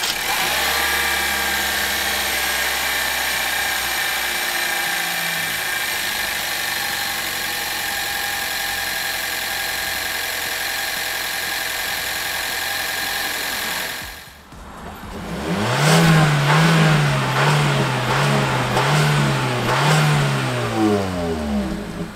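Changan CS35 Plus's 1.4-litre turbocharged inline-four idling steadily, heard under the open bonnet with the engine still cold. About two-thirds in, the sound dips briefly and is followed by a louder pitched sound that swings up and down about once a second and falls away near the end.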